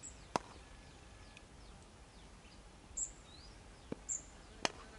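Quiet open-air ambience with short, high bird chirps and a few sliding whistles scattered through it, and two sharp clicks, one about half a second in and one near the end.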